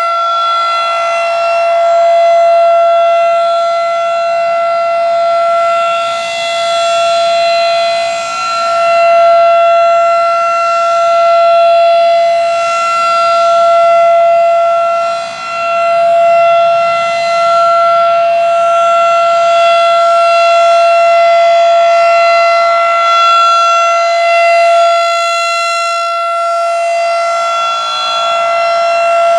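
Federal Signal 2001-SRNB rotating outdoor warning siren sounding a steady alert tone for a test, held at one constant pitch at full speed. Its loudness rises and falls.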